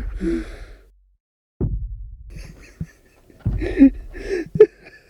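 A man's breathy gasps and groaning vocal sounds, then short voiced bursts near the end that break into the start of hysterical laughter, over a low rumble.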